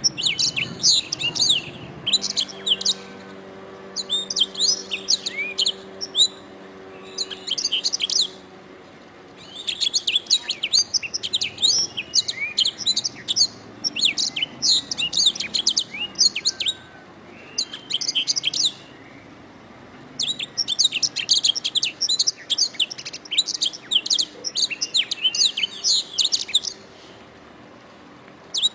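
Domestic canary singing: long runs of rapid trills and chirps in several bursts, broken by short pauses of about a second.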